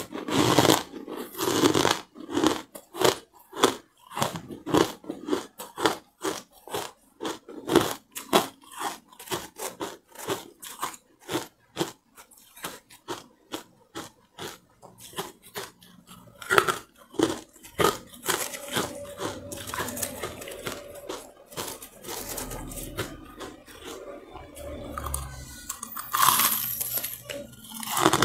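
Carbonated ice being bitten and chewed right at the microphone: rapid crisp crunches, several a second. The crunching thins out in the last third, then a loud fresh bite comes near the end.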